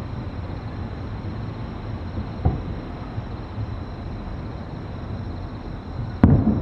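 Distant aerial fireworks: a faint thump about two and a half seconds in, then near the end the sharp bang of a shell bursting, with a rolling echo after it, over a steady low rumble.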